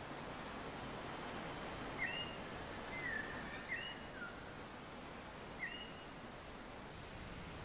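Steady hiss of rain falling on a tropical forest, with a few short bird chirps, clustered about two to four seconds in and once more near six seconds.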